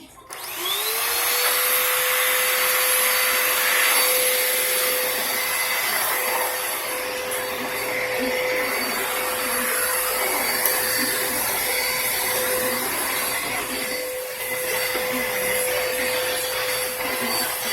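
Vacuum cleaner switched on: its motor whine rises as it spins up in the first second, then it runs steadily with a constant whine over rushing air.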